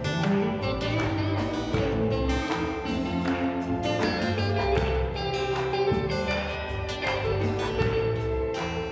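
Live gospel band playing an instrumental passage: electric guitar lines over deep bass notes and a steady drum-kit beat.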